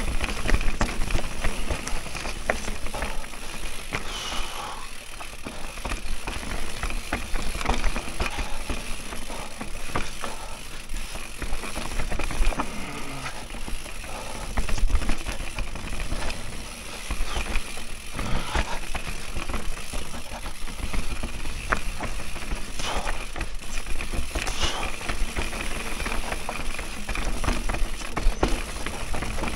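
Mondraker Raze enduro mountain bike descending a dirt forest trail at speed: tyres rolling over dirt and roots with a steady low rumble, and frequent clicks and rattles from the bike over the bumps.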